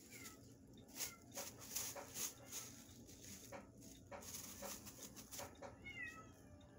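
A thin plastic bag crinkling and rustling in quick crackles as a kitten paws and bites at it, with a few faint high-pitched kitten mews that fall in pitch, near the start and again near the end.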